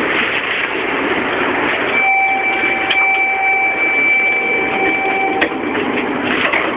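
A steady electronic tone, two pitches held together, sounds for about three and a half seconds aboard a Shinkansen train and cuts off with a click, over a steady background noise.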